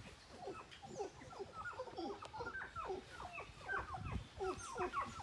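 A flock of birds calling: many short squawks, each sliding down in pitch, overlapping several a second in a continuous chatter.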